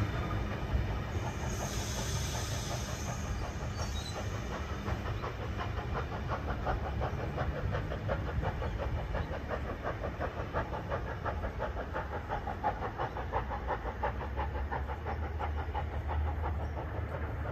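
A passenger train running away down the line, with a brief high hiss about two seconds in.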